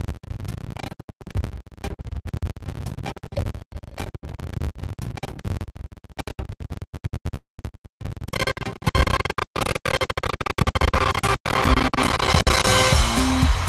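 Quiz game's results-screen music heard through a video call, choppy with many brief dropouts; it grows louder and fuller about eight seconds in.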